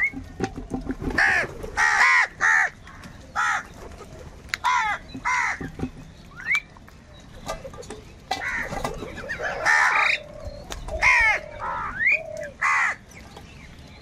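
A flock of house crows cawing: harsh calls from several birds come in repeated clusters, overlapping one another, with short lulls between.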